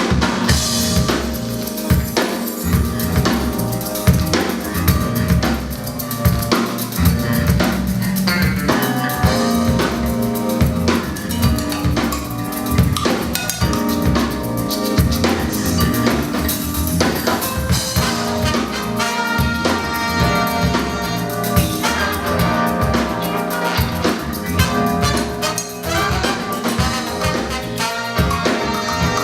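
Live band playing through the PA during a sound check, with a drum kit driving a steady groove of kick, snare and rimshots under bass. More pitched instruments fill in about nine seconds in.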